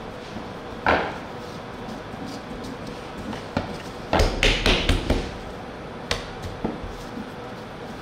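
Hard café equipment being knocked and set down: one sharp knock about a second in, then a quick run of five or six heavier knocks, and a few lighter taps after.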